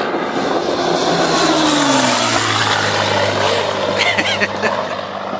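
Supermarine Spitfire's Rolls-Royce Merlin V12 engine in a low, fast flyby. It is loudest about two seconds in, and its pitch drops as the plane passes, then it runs on steadily at a lower pitch as the plane moves away.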